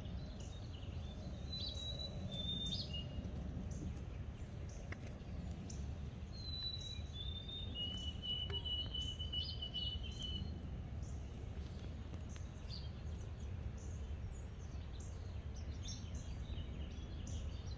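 Faint outdoor background: a steady low rumble with a few bird calls, short whistles about a second in and a longer held whistle around eight to ten seconds in.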